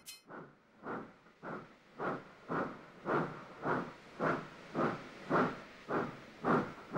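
Steam tank engine chuffing, evenly spaced exhaust puffs about two a second that grow steadily louder as the engine approaches.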